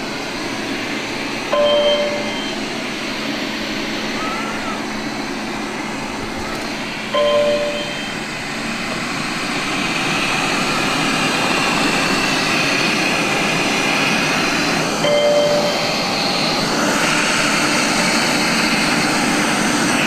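Eufy RoboVac X8 robot vacuum running on carpet, a steady rushing fan noise that grows louder in steps as its suction level is raised. A short electronic beep sounds three times, as each new suction level is set.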